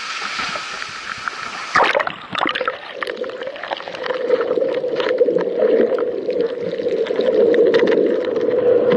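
Surf washing over rocks as heard by a camera at the sea surface, then a splash as it goes under about two seconds in. After that, the muffled, churning rush of rough surf heard by the submerged camera, full of crackles and getting louder from about four seconds in.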